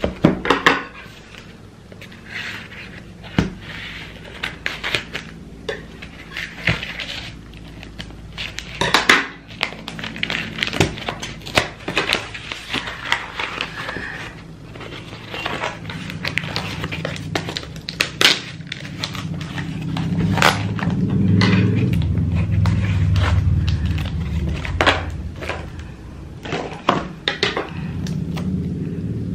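Cardboard packaging being opened and handled on a wooden table: rustling and scraping of cardboard with frequent sharp knocks and taps.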